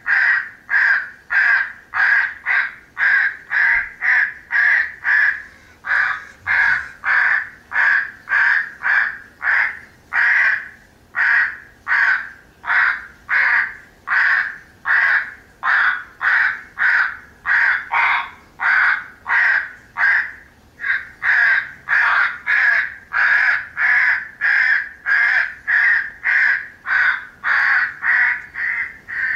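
Crows cawing over and over, about two harsh caws a second with hardly a break: a crow feeding call of the kind played to draw in corvids.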